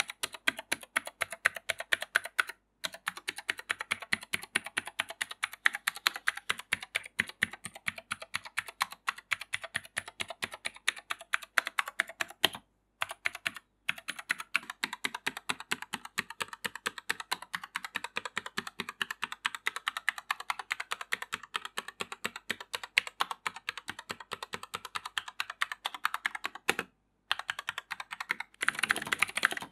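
Rapid typing on a Gamakay LK67 hot-swappable mechanical keyboard fitted with Gateron switches: a dense, fast run of key clicks, broken by a few brief silences.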